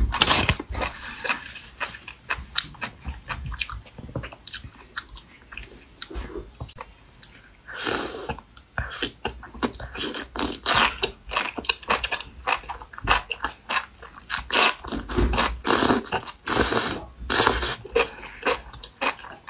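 Close-miked wet chewing and slurping of enoki mushrooms in spicy chili broth: rapid sticky mouth clicks throughout, with longer slurps near the start, about eight seconds in, and a couple more around fifteen to seventeen seconds.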